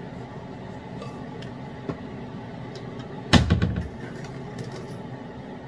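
Kitchen handling noises: a few light taps, then a single heavy thump about three seconds in, over a steady low hum.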